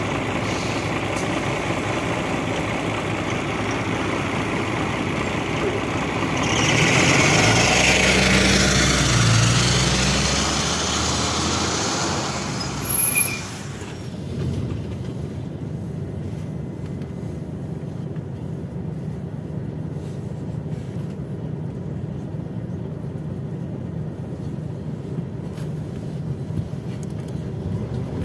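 Scania OmniLink I city bus's rear engine running close by its engine grille, swelling louder for a few seconds in the middle, with a brief sharp burst just before halfway. From about halfway on it is heard from inside the passenger cabin while riding: a quieter, steady engine and road noise.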